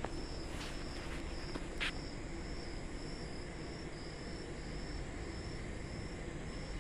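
Rhythmic high chirping, about two to three chirps a second, over a steady low background noise, with one faint click about two seconds in.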